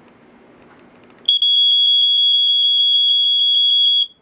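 Smoke alarm horn sounding on a test-button press: a single loud high-pitched tone starts about a second in and pulses very fast, roughly seven times a second, with very short off gaps, then stops just before the end.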